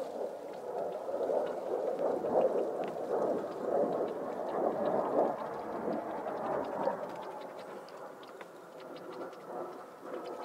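Leafy branches rustling and crackling close to the microphone, a dense patter of small leaf ticks that eases off after about seven seconds.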